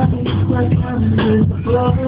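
Loud dance music with a steady beat, played for the dancers.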